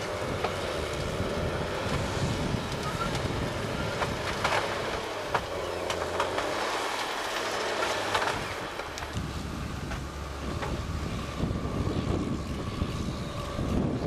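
Forestry forwarder's diesel engine running under load as its hydraulic crane handles logs, with several sharp knocks in the middle of the stretch and wind buffeting the microphone.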